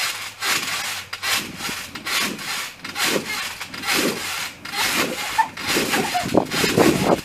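Orbeez water beads swishing and rattling on a trampoline mat as people bounce on it barefoot, a rasping burst with each landing about once a second.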